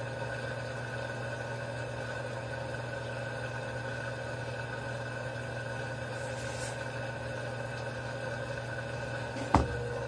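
Consul top-load washing machine humming steadily while the drum stands still, then a single sharp clunk near the end as the drive engages and the drum begins to turn, after which a new steady tone joins the hum.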